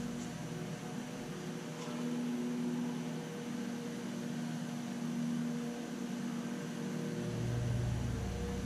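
Steady hum with a few faint clicks; a low rumble comes in about seven seconds in.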